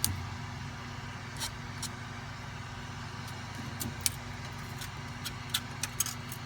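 Steady low hum of a FlashForge Creator Pro 3D printer's fans, with scattered light clicks and taps of hard ABS plastic being handled, the sharpest about four seconds in.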